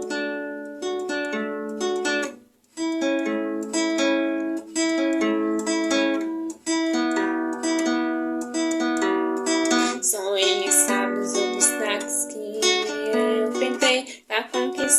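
A plucked acoustic string instrument plays an instrumental intro. Single notes are picked in a flowing melodic pattern, and from about ten seconds in the playing turns fuller and denser.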